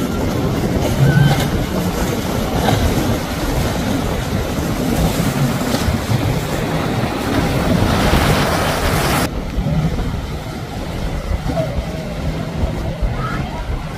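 Outboard-powered center-console boats running fast through choppy inlet waves: a steady rumble of engines and rushing water. A hiss builds about seven seconds in and cuts off suddenly about two seconds later.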